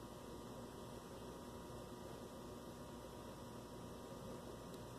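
Faint steady electrical hum over low background hiss: room tone.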